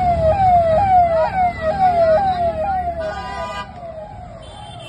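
Vehicle siren on a rally convoy sounding a fast repeating warble, each sweep jumping up and sliding down, about two a second, fading away after about three and a half seconds. A vehicle horn honks briefly about three seconds in.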